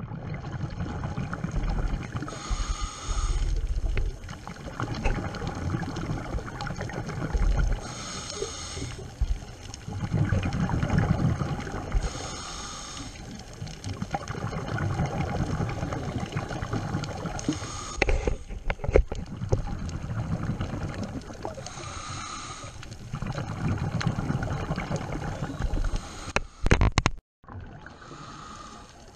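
Underwater sound of scuba breathing: a burst of exhaled regulator bubbles about every five seconds over a steady low water rumble, with a few sharp clicks near the middle and near the end.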